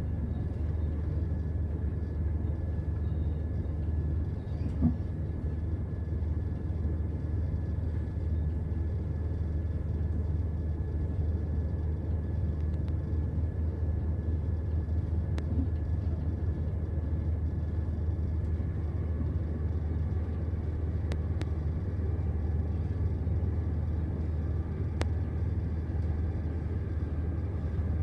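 Steady low rumble of a passenger train running at speed, heard from inside the carriage, with a faint steady whine above it. A single sharp knock about five seconds in and a few faint clicks later.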